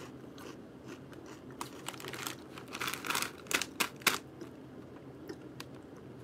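A SunChips snack bag crinkling as it is handled, in scattered crackles that are loudest between about three and four seconds in.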